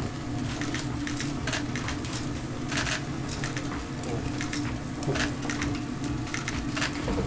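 Hand pepper mill being twisted, giving a run of short, irregular crunching crackles, over a cube of Miyazaki wagyu beef sizzling on a teppanyaki griddle. A steady low hum runs underneath.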